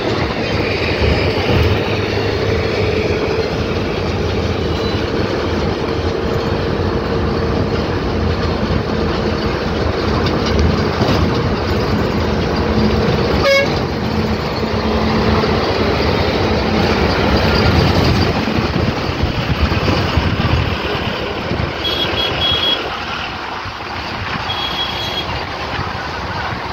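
Road traffic noise heard from a moving vehicle: a steady engine drone and tyre rumble, with a high-pitched horn beeping twice near the end.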